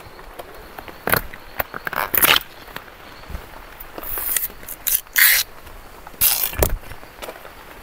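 Machete blade forced into a palm stalk and splitting it open lengthwise to reach the palm heart: several short bursts of splitting and scraping, the loudest about two and five seconds in.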